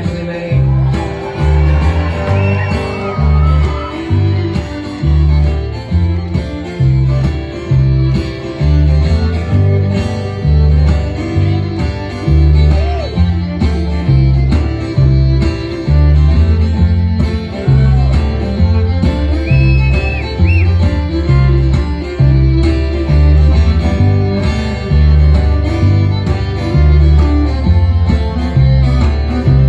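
Acoustic string trio playing a bluegrass-style tune: bowed fiddle, strummed acoustic guitar and plucked upright bass, the bass notes pulsing in a steady beat.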